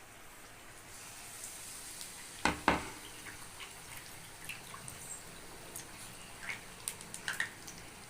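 Batter-coated banana slices frying in hot oil: a steady sizzle with scattered crackles. There are two loud knocks close together about two and a half seconds in.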